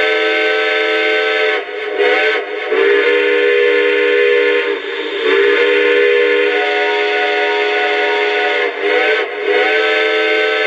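Sampled chime steam whistle of a Lionel Legacy O-gauge Southern Pacific Cab Forward model, played through the locomotive's onboard speaker in a series of long and short blasts. Each blast sounds several tones at once as a chord.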